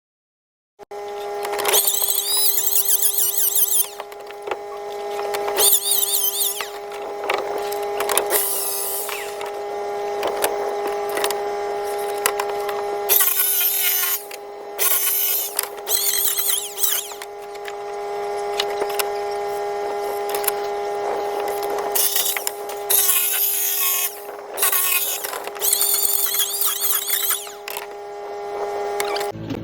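Electric power tool running with a steady high whine, broken by many short bursts of harsh cutting noise as it bites into material.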